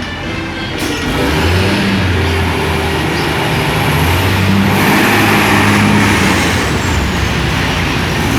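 A large bus's engine running as the bus passes, growing louder about a second in and staying loud.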